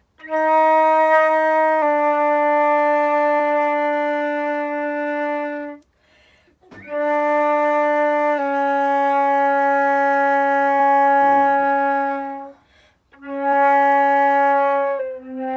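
Flute playing long-tone exercises in the low register: notes held steadily for a few seconds each, in pairs where the second note steps slightly lower, with short breaths between the pairs.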